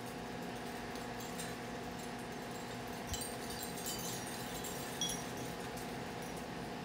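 Backyard ambience in a passing storm: a steady low hum under a light hiss, with a few faint high tinkling notes about three to five seconds in.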